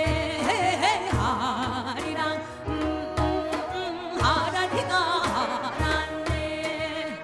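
Korean fusion gugak ensemble music: a wavering, heavily ornamented melody line with wide vibrato over repeated low drum beats.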